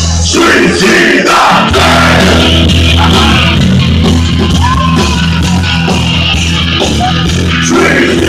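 Live rock band playing loud through the stage PA, with a singer yelling over a steady, heavy bass line; the bass drops out for about a second near the start.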